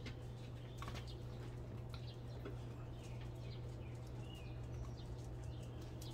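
Outdoor yard ambience: a steady low hum under scattered light clicks and taps, with a few faint bird chirps.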